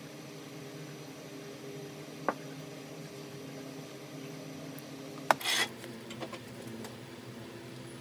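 Steady electrical hum, with a faint click about two seconds in, then a sharp snap and a brief sizzle a little past five seconds, from a transformer soldering tool heating the joint on an electric motor stator's lead wires.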